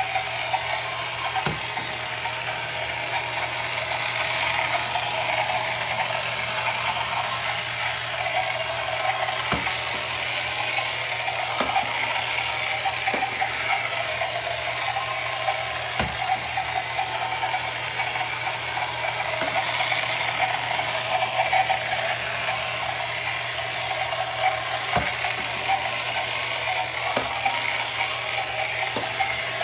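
Battery-powered outboard motor of a 1968 Ideal Motorific Boaterific toy boat running in bathtub water: a steady geared whirring rattle, with a few light clicks now and then.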